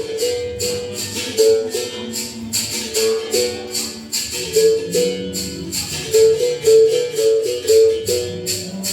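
Berimbau played in a steady rhythm with the caxixi shaker rattling on each stroke, about four strokes a second, its note switching back and forth between two close pitches.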